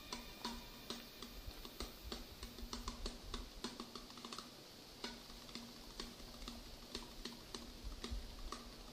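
Paintbrush dabbing oil paint onto a canvas on an easel: faint, light taps that come irregularly, a few a second.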